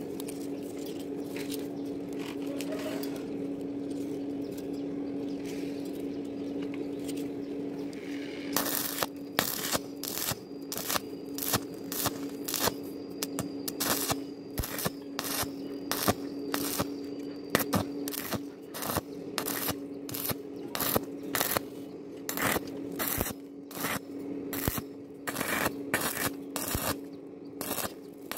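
Stick-welding arc on thin 1 mm square tube, struck and broken over and over in short bursts about two a second from about eight seconds in. This stop-start arcing is the usual way to weld thin wall without burning through. A steady low hum runs underneath.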